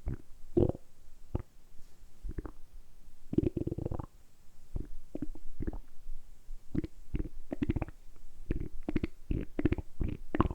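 A person's stomach gurgling and rumbling in quick runs of short, irregular gurgles, with a brief lull about four seconds in. The growling is made on purpose by working the abdominal muscles.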